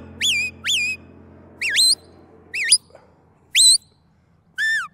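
Shepherd's metal sheepdog whistle blown in a string of about six short, sharp notes, each sweeping up and falling back in pitch: whistle commands to a working border collie.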